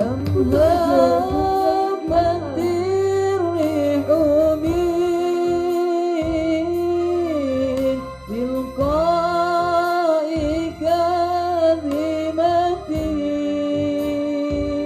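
A male student singing solo, a slow melody of long held notes that waver and glide between pitches, over a steady low instrumental backing.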